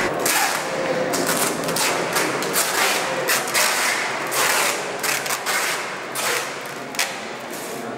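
Wooden slats of a strap-lashed timber frame knocking and rattling against each other as they are pushed and worked by hand, a dense, irregular run of knocks and clatters, with a sharper knock about seven seconds in.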